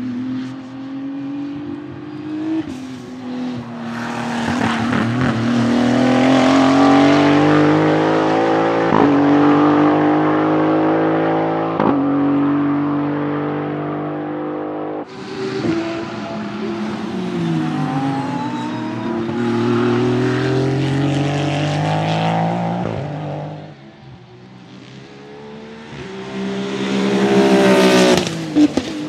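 Maserati MCXtrema's 3.0-litre twin-turbo V6 race engine accelerating hard on track, its pitch climbing and dropping through gear changes, with sharp cracks at the shifts. Near the end the car comes up loud and passes close, its pitch falling as it goes by.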